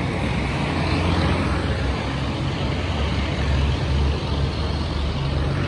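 Road traffic heard from above: a steady wash of engine and tyre noise with a low rumble that swells slightly now and then.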